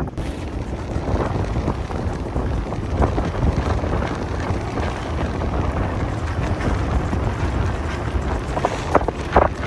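Wind blowing hard across the microphone on a sailboat under way: a steady heavy low rumble with rushing noise, and a couple of sharper buffets near the end.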